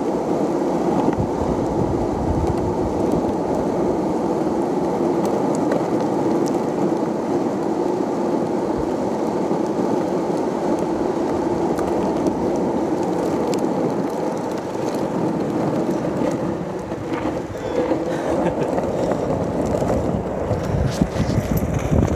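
Skateboard wheels rolling over rough asphalt, a steady rumble, with wind buffeting the microphone.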